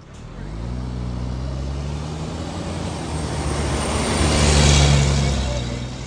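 Engine of a heavy motor vehicle running, rising in pitch just after the start, then swelling louder with a rushing hiss to a peak about five seconds in before easing off.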